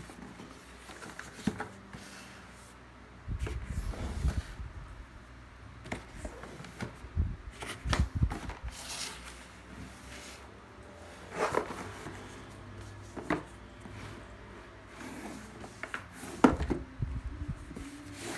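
Cardboard product box being handled and turned over: irregular rubbing, scraping and knocks, with a sharper knock near the end.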